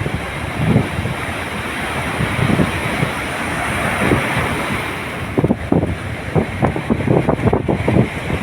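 Ocean waves washing in as a steady surf noise, with wind buffeting the microphone in quick low gusts from about halfway through.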